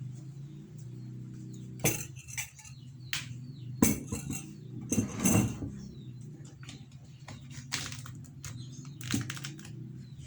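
Kitchen utensils and dishes clinking and knocking against each other a handful of times at irregular intervals, over a steady low hum.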